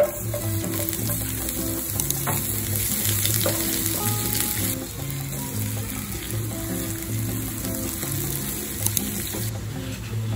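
Sliced red onions hitting hot oil in a nonstick frying pan and sizzling, starting with a sudden loud hiss as they go in. The sizzle eases about halfway through and stops shortly before the end, with background music underneath.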